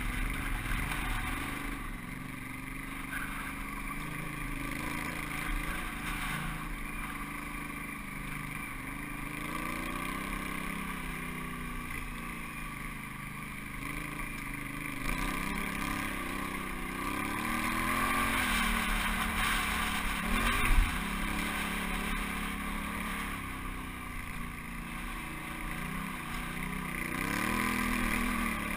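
Honda Africa Twin adventure motorcycle's engine running at low trail speed on a rocky dirt track, its pitch rising and falling again and again as the throttle is opened and closed. A single sharp thump about 21 seconds in.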